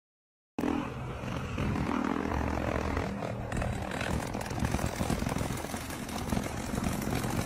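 A motor running steadily, cutting in abruptly about half a second in after a brief silence.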